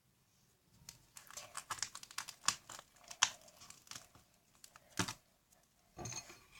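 Small, irregular clicks and crinkling from plastic containers being handled, starting about a second in.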